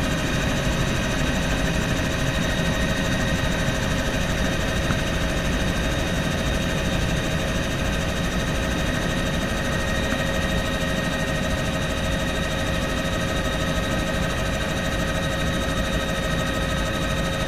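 Bell helicopter in cruising flight, heard from inside the cabin: a steady engine and rotor drone with a constant whine over it.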